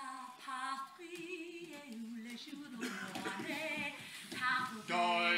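A woman's voice singing long, wavering notes, joined by other voices and louder near the end.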